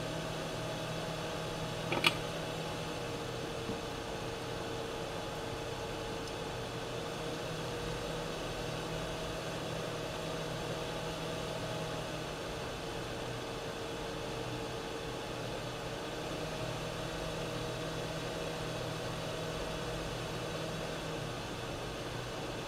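Steady mechanical hum from a small running machine, with a few faint steady tones, and one sharp click about two seconds in.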